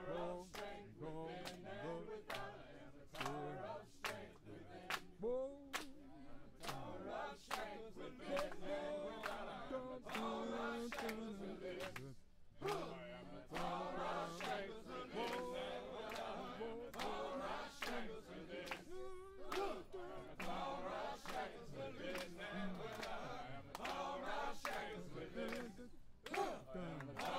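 A crowd of voices singing together in unison, with steady rhythmic hand clapping about twice a second.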